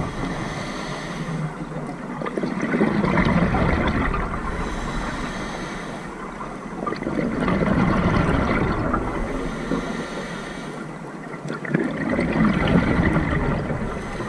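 Scuba diver breathing through a regulator underwater: a hissing inhale, then a gurgling rush of exhaled bubbles, three breaths about four to five seconds apart.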